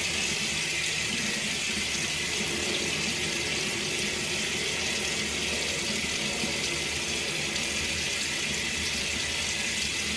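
Bathroom sink tap running steadily into the basin, a constant hiss that cuts off suddenly at the end.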